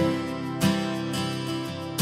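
Background music: strummed acoustic guitar with a steady beat.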